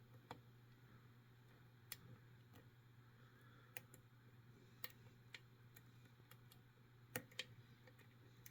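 Faint, irregular clicks of a lock pick working the chisel-tipped pins of a Medeco 72S bi-axial cam lock, roughly one click a second, over a low steady hum.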